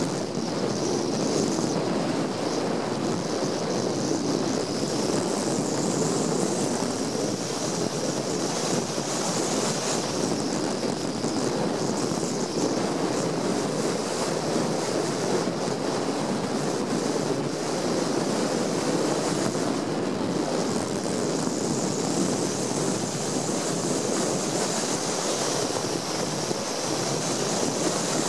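Steady rushing noise of a mountain bike riding downhill on packed snow: wind buffeting the microphone, with the tyres hissing over the snow.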